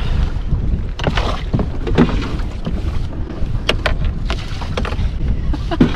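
Wind rumbling on the microphone over water lapping around two canoes held side by side, with a few sharp knocks and clunks; the loudest comes near the end.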